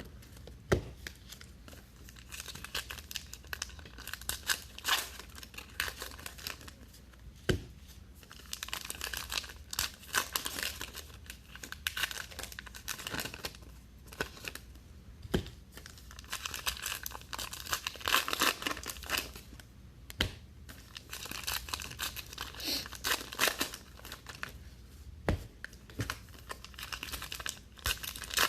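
Baseball trading-card packs being torn open and their wrappers crinkled, with cards clicking and rustling as they are handled and sorted, in irregular bursts throughout.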